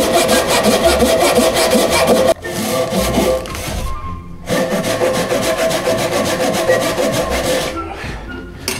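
Japanese pull saw cutting by hand into a wooden post, quick back-and-forth strokes. It breaks off briefly about two seconds in and again around four seconds, then stops shortly before the end.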